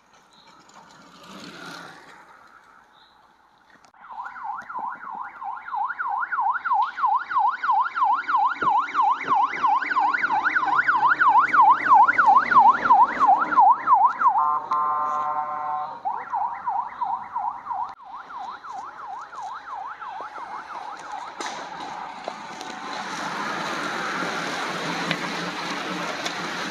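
A race escort vehicle's siren yelping fast up and down as it approaches and passes, loudest about halfway through and broken briefly by a steady tone. Near the end comes the rushing whir of a bunch of road racing bicycles going past.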